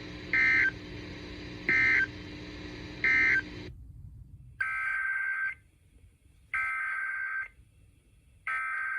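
Emergency Alert System SAME data tones, a warbling two-tone digital squeal. First come three short bursts, the end-of-message code, over a receiver's steady hum. After a sudden drop in the background, three longer bursts about a second apart follow: the SAME header that opens the next alert.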